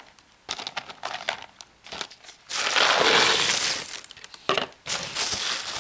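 Dry ice pellets rattling in a plastic tub and a plastic bag crinkling as they are handled. About two and a half seconds in comes a loud rush lasting nearly two seconds as the tub is tipped and the pellets slide out, followed by a few sharp clicks.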